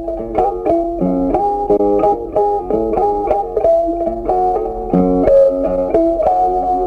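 Background music: a plucked guitar playing a quick melody of short notes.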